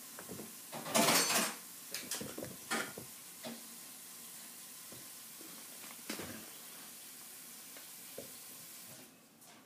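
A cat's paws and claws scrabbling and scuffing on carpet as it pounces at a laser dot: irregular rustles and scratches, the loudest burst about a second in and a few shorter ones after.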